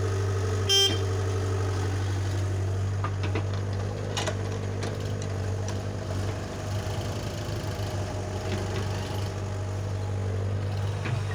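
Diesel engines running steadily: a Caterpillar tracked excavator working its boom and bucket to load soil, with farm tractors running alongside. A brief high-pitched squeal about a second in, and a few faint knocks later.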